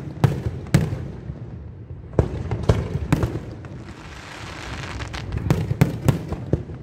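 Fireworks going off: a string of sharp, separate bangs, with a hissing crackle about two-thirds of the way through.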